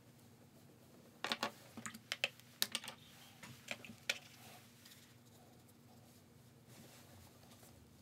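A quick run of light clicks and taps, starting about a second in and lasting some three seconds, from paint brushes and paint tubes being picked up and set down on a wooden table. A faint steady hum lies underneath.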